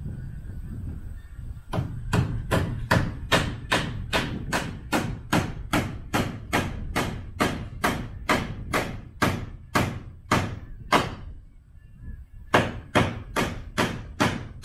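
Footsteps knocking on the rungs of a tall ladder as a man climbs it, about two and a half steps a second, pausing for about a second near 11 s before climbing on.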